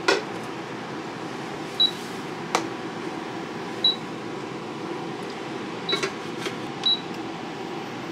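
Steady fan whir from the running air fryer and induction cooktop, with a short high electronic beep every second or two. A few sharp clicks and clanks come from metal tongs and the metal Air Whirl Crisper lid being set on the frying pan.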